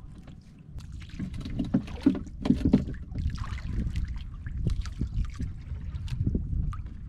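Sea water lapping and splashing against the hull of a small outrigger boat, over a steady low wind rumble on the microphone, with a few sharp knocks and splashes about two to three seconds in.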